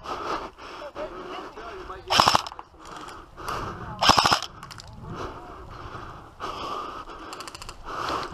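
Airsoft rifle firing two short full-auto bursts about two seconds apart, each a quick rattle of shots, with a fainter, higher rattle of more gunfire near the end.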